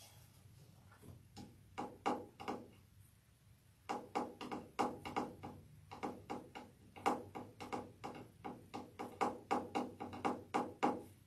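A fast, irregular run of sharp clicks or taps, a few at a time, with a pause of about a second near the start.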